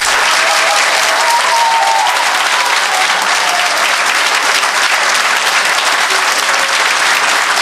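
A crowd applauding, the clapping starting suddenly and holding steady throughout.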